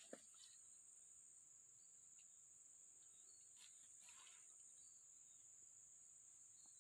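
Near silence with a faint, steady high-pitched insect drone, and a small click just after the start.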